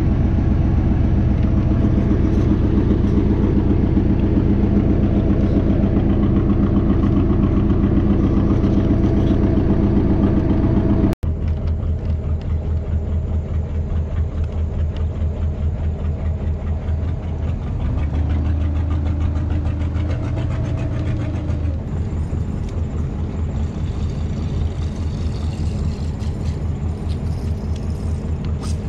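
Boat engine running at a steady speed, with a sudden break about eleven seconds in, after which it runs a little quieter.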